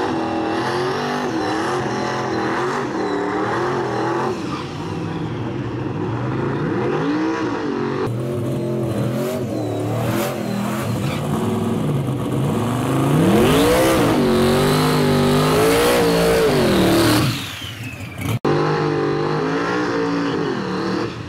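Drag-race engines revving at the start line. First a Fox-body Mustang's engine is blipped up and down. Then a twin-turbo wagon's engine revs in waves, climbs and holds high for several seconds as the loudest part, and drops off near the end.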